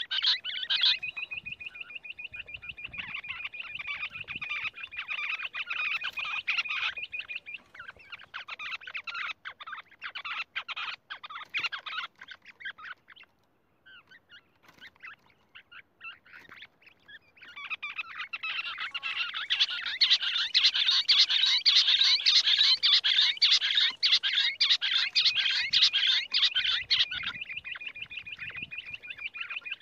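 Rock bush quail calling: a rapid chatter of many short, repeated notes. It thins out to a near pause about halfway through, then returns louder and denser.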